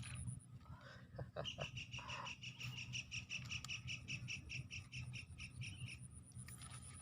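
A bird calling in a fast run of evenly repeated high notes, about seven a second, starting about a second and a half in and stopping near the end. A thin high steady whine, typical of insects, drops out while the call runs and comes back after it.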